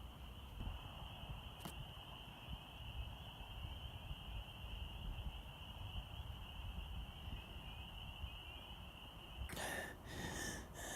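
Faint outdoor ambience: a steady high-pitched drone over a low rumble, with a short click about two seconds in and a rustle near the end.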